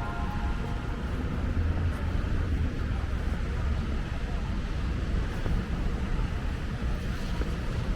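Steady low rumble of road traffic with a constant hiss above it.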